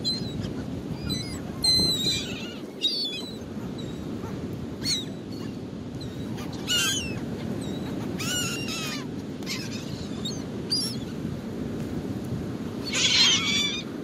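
Gulls calling as they compete for thrown bread: short, high calls, a dozen or so scattered through, with a burst of several together near the end, over a steady low rush.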